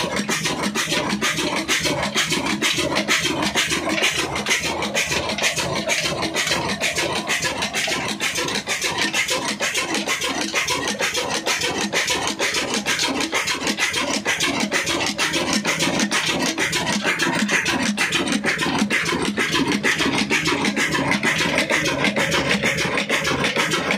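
Old desi Ruston-type diesel engine running steadily, a fast, even mechanical clatter.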